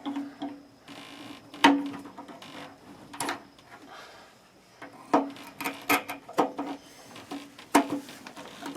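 Irregular sharp clicks, knocks and scrapes as the lower thermostat of an electric water heater is pried and worked loose from its mount. The strongest knock comes a little under two seconds in, with a cluster of clicks in the second half.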